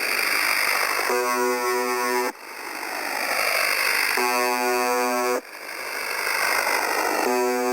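UVB-76 'The Buzzer' shortwave station on 4625 kHz, heard through a radio receiver. Short, low monotone buzzes, each about a second long, repeat roughly every three seconds: two full buzzes, then a third starting near the end. Shortwave static hiss fills the gaps and swells after each buzz stops.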